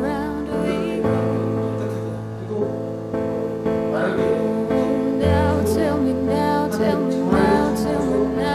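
Background pop music: a song with a sung vocal line over guitar and a bass line that changes notes every second or two.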